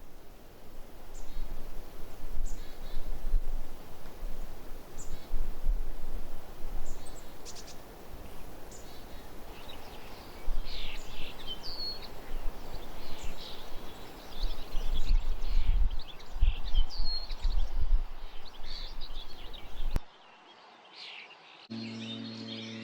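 Short, scattered bird chirps over gusty wind rumbling on the microphone. Near the end the outdoor sound cuts off, and a few held musical tones begin.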